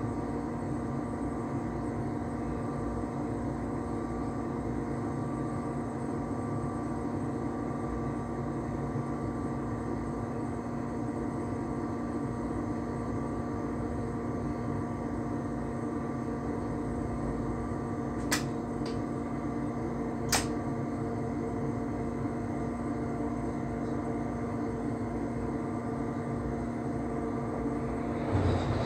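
Electric train heard inside its cab while running at a steady speed: a constant hum of several fixed tones over a low rolling rumble. Two sharp clicks come about 18 and 20 seconds in, and there is a brief louder rattle near the end.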